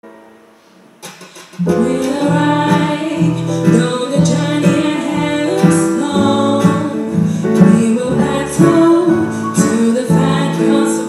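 A woman singing a stage-musical song into a microphone over instrumental accompaniment with a steady, repeating bass beat. The music starts about a second and a half in, after a near-silent opening.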